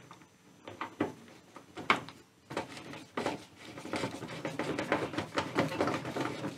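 Small clicks, then a denser run of light scraping and ticking from about halfway in, as a screwdriver works at the lawn mower's notched height-adjuster plate and its bottom bolt hole.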